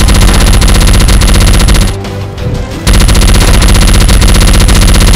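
Machine-gun sound effect: two long bursts of rapid automatic fire, the first stopping about two seconds in and the second starting about a second later.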